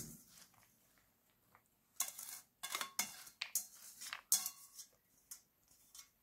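Metal colander knocking and scraping against the rim of a bowl as grated raw potato is tipped and pushed out of it: a run of short clatters and scrapes starting about two seconds in.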